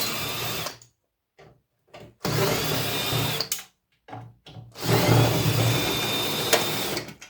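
Power drill driving out the screws that hold a microwave oven's transformer, run in three short bursts, each spinning up to a steady high whine and stopping.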